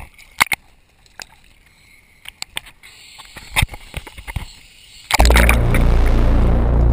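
Small splashes and sloshing of sea water against the camera at the surface, with scattered sharp clicks. About five seconds in, music with a deep bass cuts in suddenly and becomes the loudest sound.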